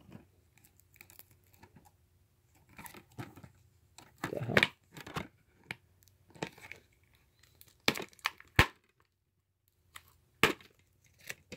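Plastic wrap being torn and crinkled off a disc case, with a louder rustle about four seconds in, then several sharp clicks and taps as the case is handled and opened.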